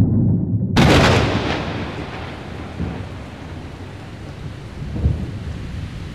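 Intro sound effect: a low rumble, a sudden loud crash about a second in, then a long fading rumble with a couple of smaller knocks.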